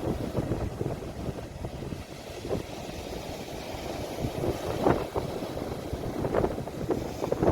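Sea waves washing, recorded on a phone, with wind rumbling on the microphone. A few short louder splashes stand out, the strongest about five seconds in.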